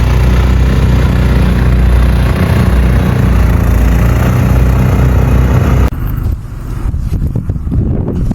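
A motor vehicle running: a loud, steady low rumble. About six seconds in it cuts off suddenly to a quieter, rougher rushing noise.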